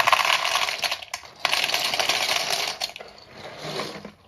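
Dry conchiglie rigate pasta shells pouring from a cardboard box into a plastic mixing bowl, a dense clattering rattle of many small hard pieces. It comes in two pours with a short break between, about a second in.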